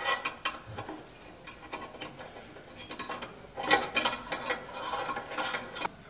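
Small metal clicks and scrapes of a flame sensor and its mounting screw being fitted back into a Carrier gas furnace's burner assembly by hand, busiest from about three and a half seconds in.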